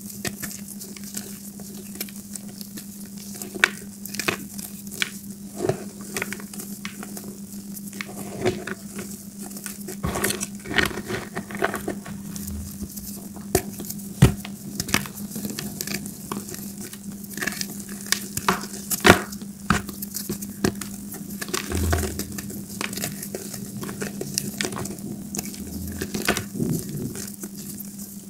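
Balls of gym chalk being crunched and crumbled between the fingers: irregular dry crackles and snaps, with crumbs pattering onto a heap of crushed chalk. A steady low hum runs underneath.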